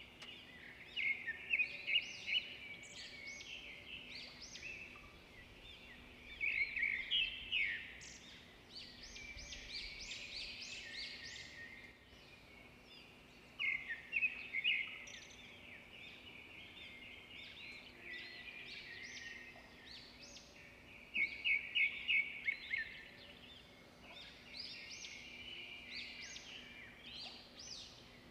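Songbirds singing: bursts of rapid, high chirps and trills every few seconds, with quieter twittering between them.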